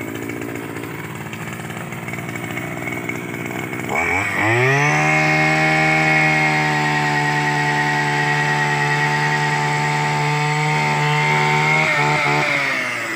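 Handheld petrol-engine drill running at low speed, then revved up hard about four seconds in and held at a steady high speed while its bit bores a hole into the base of an oil palm trunk. The revs dip briefly a couple of times near the end, then the engine slows.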